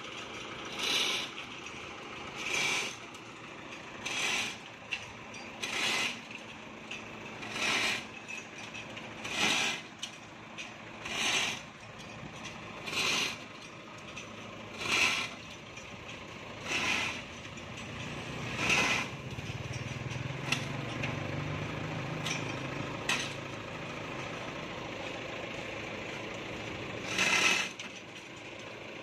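Lifting gear of an old tow truck being worked by hand: a short rasping mechanical stroke about every two seconds, which stops about two-thirds of the way in, with a low engine-like hum for a few seconds after and one more stroke near the end.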